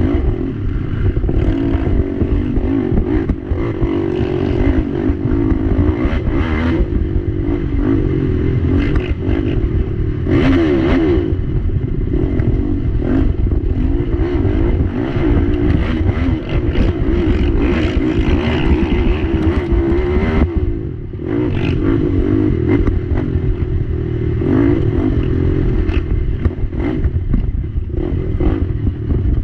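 Sport ATV engine being raced, its pitch rising and falling as the throttle is worked over rough trail, with clatter and scrape from the quad and the ground under it. About two-thirds of the way through the throttle drops off for a moment before picking up again.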